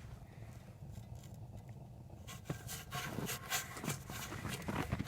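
Low steady rumble of a waste oil burner running. From about two seconds in, a quick run of scraping and rubbing clicks joins it.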